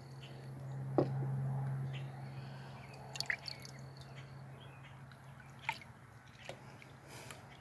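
Small wet squishes and a few sharp clicks of a knife working through a trout's flesh and guts as it is cleaned, over a steady low hum that swells about a second in.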